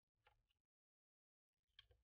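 Near silence, broken by two faint, brief noises: one just after the start and one near the end.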